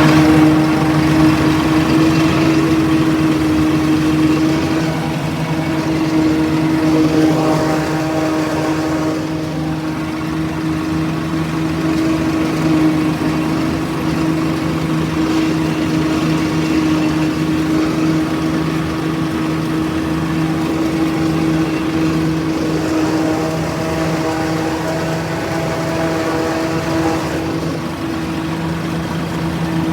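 Tractor engine running steadily under load, driving a PTO-powered maize silage harvester, with a constant droning hum from the engine and the harvester's machinery.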